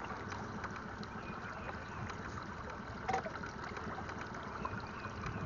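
Steady wash and trickle of water against a pontoon boat's hull, with a brief louder sound about three seconds in.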